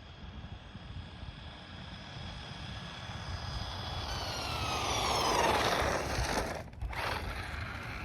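Vintage Losi LXT electric RC truck's brushed motor and gears whining as it speeds past at full throttle. The whine grows louder to a peak about five seconds in, then drops in pitch as the truck goes by and away.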